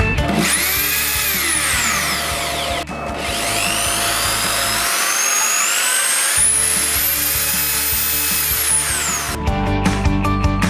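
ZUBR DSh-M3-500-2 corded drill-driver's motor run twice: first a quick spin-up to full speed that then winds down, then a slower run-up with the speed climbing in steps as the trigger is squeezed, held at full speed and let go to wind down near the end. Background music plays underneath.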